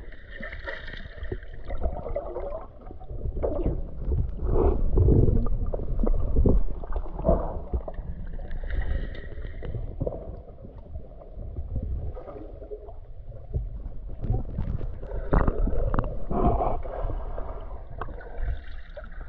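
Water sloshing and splashing close to the microphone, with irregular knocks and thumps, louder in two stretches about 4 and 15 seconds in.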